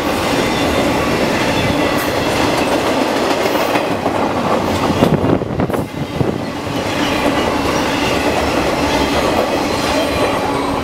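Train passing close by, its cars rolling steadily along the rails, with a brief louder stretch about five seconds in.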